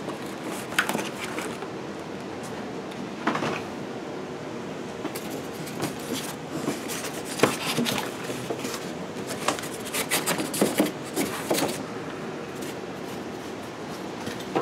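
Cardboard packaging being handled and lifted out of a shipping box: an irregular run of scrapes, rustles and knocks, thickest about halfway through.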